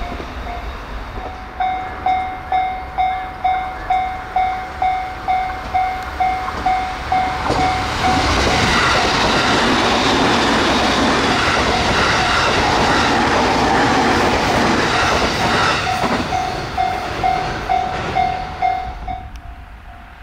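Railway level-crossing warning bell dinging about twice a second. About eight seconds in it is drowned out by a train passing at speed, a loud rush of wheel and rail noise that lasts about eight seconds. The bell returns as the train clears and stops near the end.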